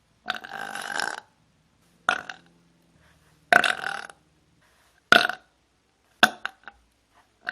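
A woman burping again and again: about five separate burps a second or so apart, the first one long and the rest shorter, with a quick run of small ones near the end.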